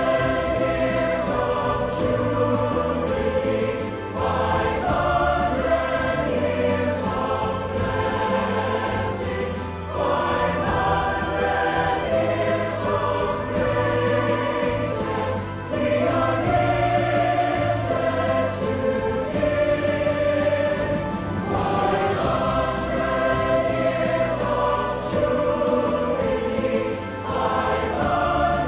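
A choir singing with instrumental accompaniment, in long held phrases over a steady bass, with a short break about every six seconds.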